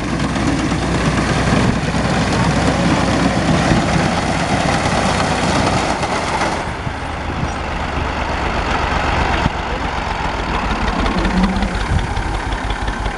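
Ursus 2812 tractor's diesel engine running steadily while working a wheat reaper, with a dense clattering, rushing noise over it that turns duller about six and a half seconds in.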